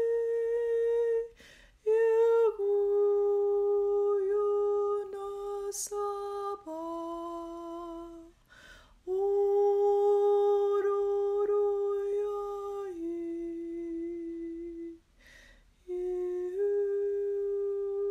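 A woman's voice humming long, held wordless notes in a slow melody that steps up and down in pitch, with three short breaks for breath.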